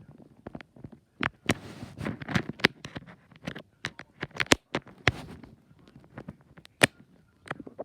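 Irregular sharp clicks and light knocks, a dozen or more spaced unevenly, with a short rustling hiss about two seconds in.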